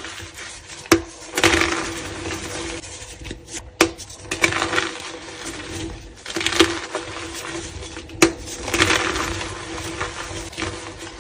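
Blocks of reformed gym chalk crushed and crumbled between the fingers: crunchy crumbling in bursts about every two seconds, with a few sharp snaps as pieces break apart.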